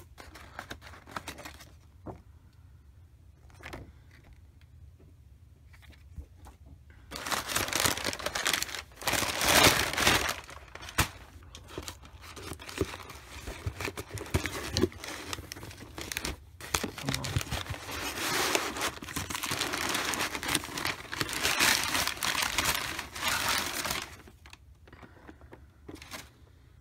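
Crumpled packing paper rustling and crinkling as hands dig through a cardboard shipping box. The first several seconds hold only faint handling; then loud crumpling runs for most of the rest before dying down near the end.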